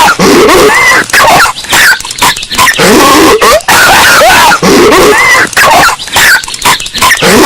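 Patrick Star's cartoon voice coughing and hacking, a short clip repeating every two to three seconds, boosted until it clips into harsh distortion.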